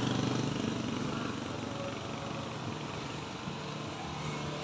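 Engines of a motorcycle and cars climbing a steep hill, fading as they pull away uphill, then swelling slightly again near the end.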